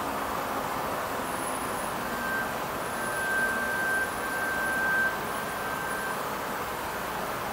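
Steady, distant city ambience, an even wash of traffic noise. A thin high tone comes in about two seconds in, holds for about four seconds and fades out, with the overall level swelling slightly while it sounds.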